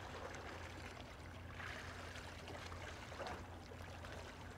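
Faint seaside water lapping and trickling, with a low steady hum underneath.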